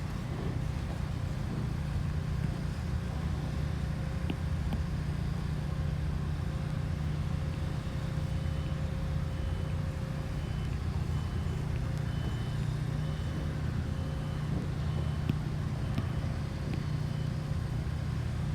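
Truck engine running with a steady low rumble. From about halfway a faint backup alarm beeps about once a second.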